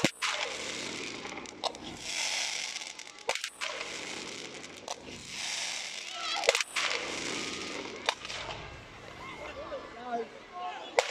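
Aerial fireworks bursting overhead: about eight sharp, irregularly spaced bangs from exploding shells, with a crackling fizz from glittering stars between them.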